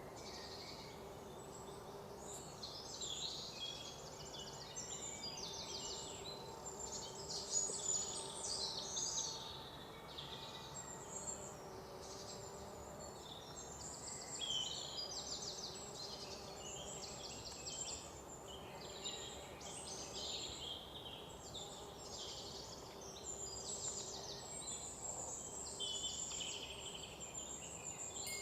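Morning forest birdsong: many birds chirping and trilling over one another in a steady chorus, over a faint background hum.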